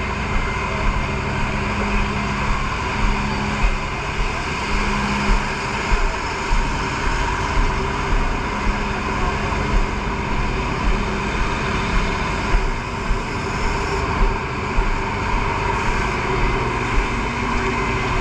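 Fire truck engine running steadily under a dense wash of noise, with short peaks in loudness recurring about every half second.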